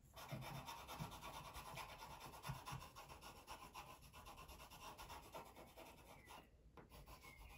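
Graphite pencil scratching on paper as it is drawn across the sheet, a faint, steady rubbing that stops about six seconds in.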